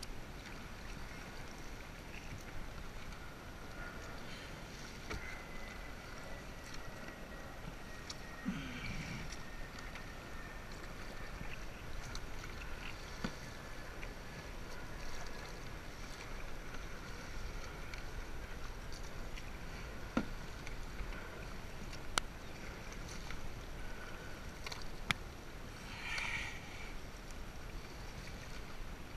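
Paddling a sit-on-top kayak through choppy water: steady splashing of the paddle blades and chop against the plastic hull, with a few sharp knocks.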